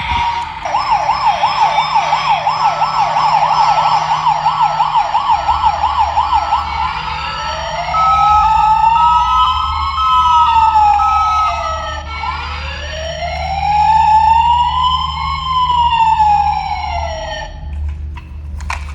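Electronic toy emergency-vehicle siren. It starts with a fast yelping warble of about three cycles a second. About seven seconds in it switches to a slow wail that rises and falls twice, then cuts off shortly before the end.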